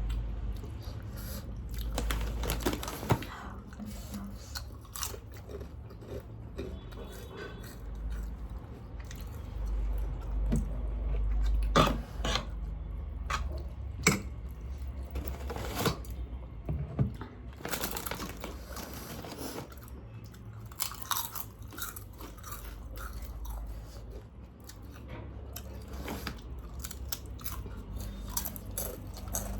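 A person chewing and biting food close to the microphone, with crunchy bites and many scattered sharp clicks of mouth and eating noise.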